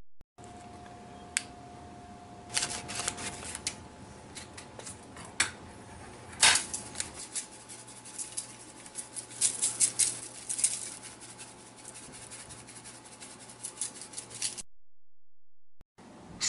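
Crinkling and rustling of a packet of dry Italian seasoning being opened and shaken over fish fillets, a run of irregular clicks and crackles that cuts off abruptly near the end.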